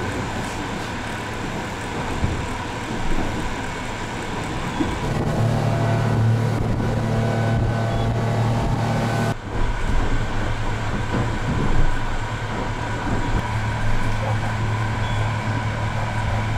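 Glass-bottom boat's engine running steadily as the boat cruises, a steady hum with a deeper drone that grows stronger about five seconds in. The sound drops out for a moment about nine seconds in, then carries on.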